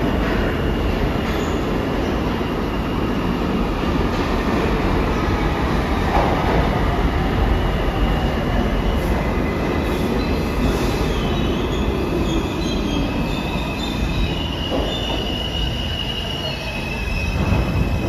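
R160 subway train running into the station: a steady rumble of steel wheels on rail, with high wheel squeal coming and going. It grows louder near the end as the cars come alongside.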